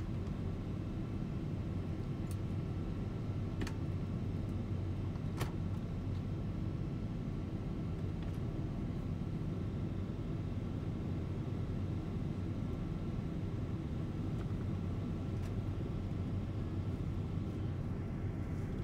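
Steady low rumble of engine and airflow noise inside a Boeing 777-200's economy cabin in flight, with a faint steady high tone over it and a few faint ticks scattered through it.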